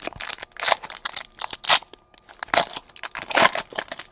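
Foil trading-card pack wrapper being torn open and crinkled by hand: a run of irregular, sharp crackling rips.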